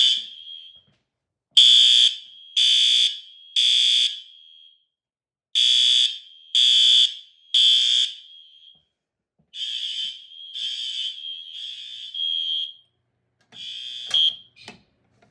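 Electric fire alarm horns sounding the temporal code-3 pattern: three shrill pulses about a second apart, a pause, then three more. The third set comes out weaker and ragged, and the sound cuts off near the end with a couple of clicks. The owner says something is wrong and puts the fault down to a System Sensor L-series device.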